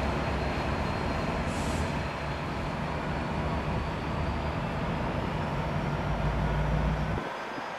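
EMD F59PHI diesel-electric locomotive running at a standstill, a steady low engine drone with a rushing noise over it. The low drone drops away suddenly about seven seconds in.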